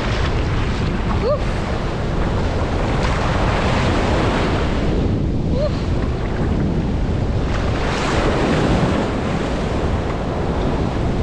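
Sea surf washing up and over a sandy shore in a steady rush, with wind buffeting the microphone.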